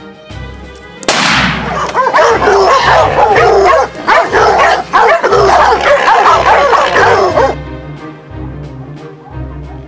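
A pack of hunting dogs barking and yelping at a downed wild boar, loud over background music with a steady beat. The barking cuts in about a second in and stops abruptly near the end.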